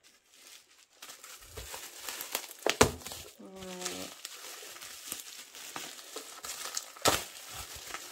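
Plastic bubble wrap crinkling and rustling as a wrapped tray is handled, with a few sharp crackles, the loudest about three seconds in and again near the end.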